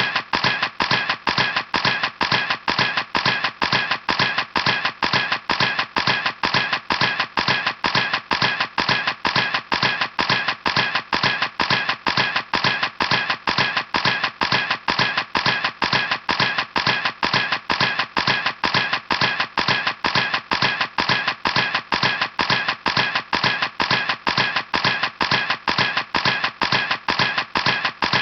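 A camera clicking over and over in an even, unbroken rhythm of about three sharp clicks a second, like a shutter being fired repeatedly.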